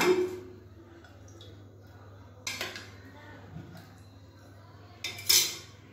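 Kitchenware clinking against a nonstick frying pan while cooking oil is poured into it: a light clink about two and a half seconds in and a sharper, louder one near the end.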